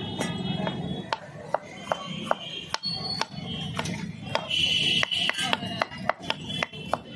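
Kitchen knife chopping green bell pepper on a wooden cutting board, a sharp knock about two or three times a second, with music underneath.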